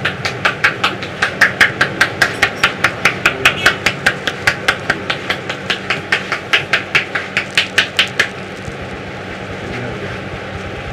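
Hands striking a head in a fast, even rhythm, about four strikes a second: the percussive tapping of an Indian head massage (champi). The strikes stop about eight seconds in.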